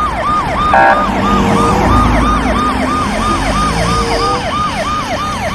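Ambulance siren in a fast rising-and-falling yelp, about four sweeps a second, over a low engine and traffic rumble. A short steady tone cuts in briefly about a second in.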